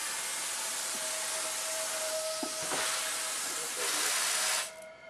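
Vacuum cleaner running with a steady hiss, a little louder shortly before it cuts off near the end.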